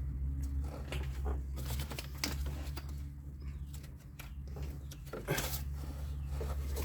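Scattered clicks and knocks of a socket and ratchet being worked on the serpentine belt tensioner, over a steady low hum.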